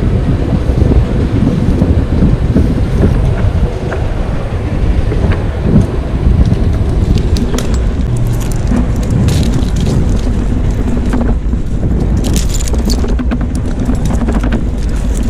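Wind buffeting the helmet-mounted microphone in a steady low rumble. In the second half, the climber's metal hardware (carabiners and a pulley) clinks and jangles in short bursts.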